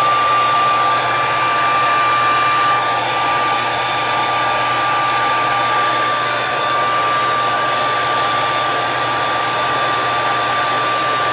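Small handheld hair dryer running steadily: a rush of air with a steady high whine over it.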